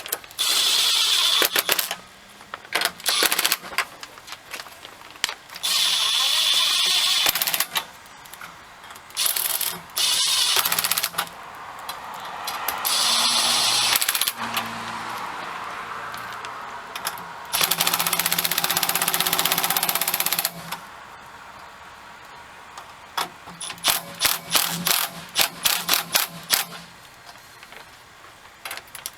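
Power driver running nuts down onto the grill insert brackets in repeated bursts of one to three seconds, with a run of quick short bursts near the end as the nuts seat.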